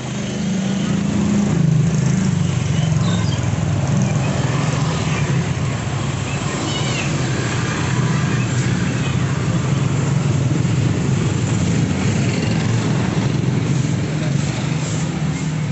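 Small motorcycle and scooter engines running and passing close by in heavy street traffic, a steady low engine drone.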